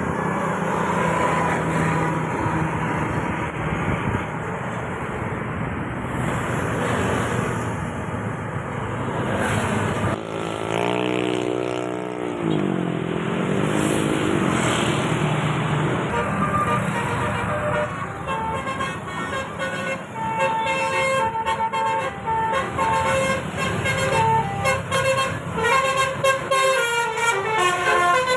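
Basuri-type telolet musical horn sounding over road traffic noise. Midway it gives a wavering, sliding tone, and in the last third it plays a rapid tune of short notes at several pitches.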